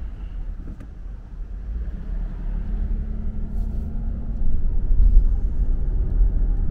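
Car cabin noise while driving slowly: a steady low rumble of tyres and engine that gets louder about halfway through.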